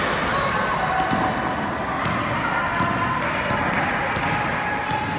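A basketball dribbled on a hard gym floor: a run of bounces a little under a second apart, echoing in the hall over a murmur of voices.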